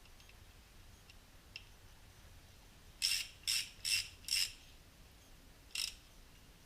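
A hand tool working on the jet ski engine: four short rasping strokes in quick succession, then one more about a second and a half later.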